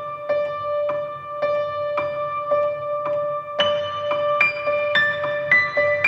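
Background piano music: a single note repeated about twice a second, with a higher melody line joining about three and a half seconds in.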